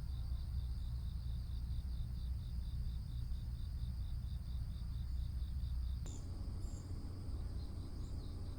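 Insects chirping with an even, steady pulse over a low rumble. The chirping and the rumble stop about six seconds in.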